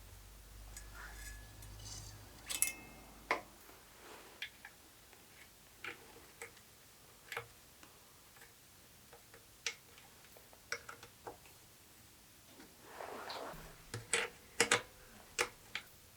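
Irregular light clicks and taps of small metal parts and hand tools being handled during bicycle assembly, with a cluster of sharper clicks near the end. A low hum runs for the first two seconds or so.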